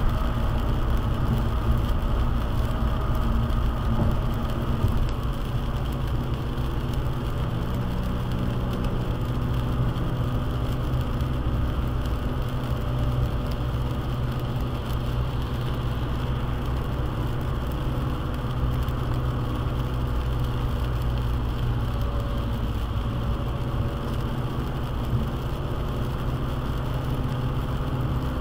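Car driving at highway speed in the rain, heard from inside the cabin: a steady low road and engine rumble with the hiss of tyres on the wet pavement.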